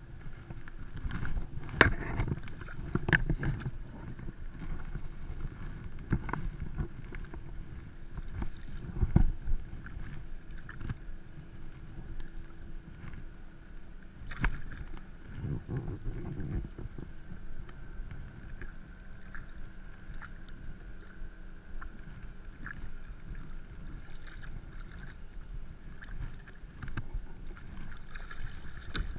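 Water lapping and splashing against the plastic hull of a Hobie fishing kayak under way, with a steady low rumble and scattered knocks and clicks, the loudest about two, three and nine seconds in.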